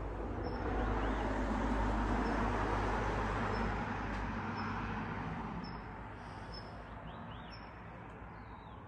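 A vehicle passing: a rushing noise that swells about a second in and fades away over the last few seconds. Short high chirps repeat through it.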